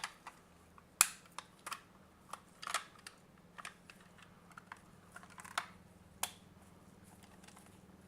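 Light, irregular clicks and taps of a Micronta 22-186 digital multimeter's parts being handled and fitted back together; they stop about six seconds in.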